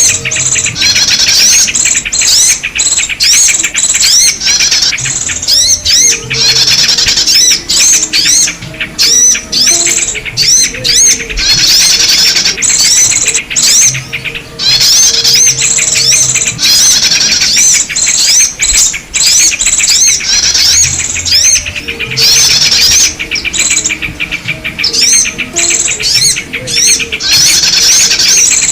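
Bird-lure recording of many small birds' high chirps and rapid twittering. The calls overlap densely and come in waves with brief gaps. The track is meant to draw yellow-vented bulbuls and other small birds.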